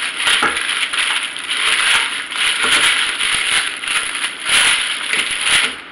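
Thin clear plastic bag crinkling and rustling as hands open it out and press it into a stainless steel bowl, a continuous crackle that swells and eases with the handling.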